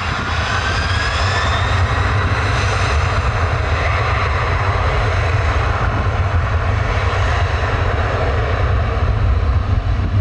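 Boeing 767-300ER's twin General Electric CF6 turbofans spooling up for takeoff: a rising whine over the first couple of seconds, then a steady loud rumble at takeoff thrust as the jet starts its roll.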